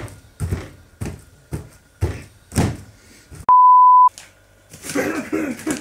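Repeated dull thumps, about two a second, of a fist pounding peeled bananas in a glass bowl. About three and a half seconds in, the thumps stop and a loud, steady, single-pitch beep sounds for about half a second, like a test-pattern or censor tone.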